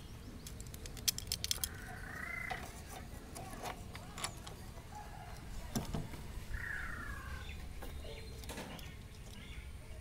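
Light metal clinks and taps as a flanged bearing housing and its bolts are handled and fitted onto a baler roller shaft, with a quick run of clicks about a second in. Two short high chirps, one near the start and one past the middle, from a bird.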